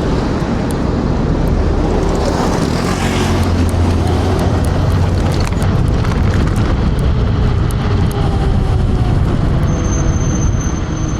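Heavy wind buffeting the rider's microphone while riding a TRBK M2 electric scooter at speed in strong wind, a steady low rumble. A thin high-pitched tone comes in near the end.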